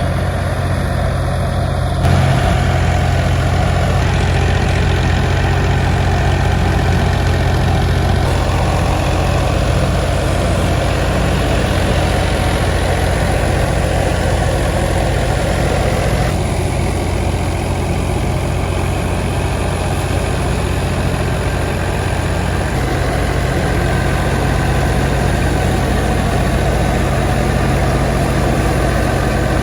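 Engine-driven wheat thresher running steadily, with a continuous low engine hum under the dense rushing noise of the machine.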